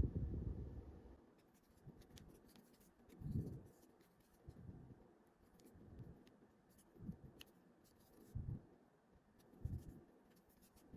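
Faint rubbing and scratching of a crochet hook working yarn. Soft low bumps come every second or so as the hands handle the work.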